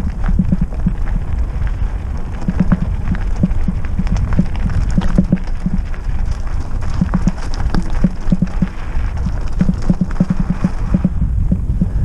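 Trek Roscoe 6 hardtail mountain bike rolling over a rough trail: irregular clusters of knocks and clatter as it bounces over bumps, over a steady low wind rumble on the microphone.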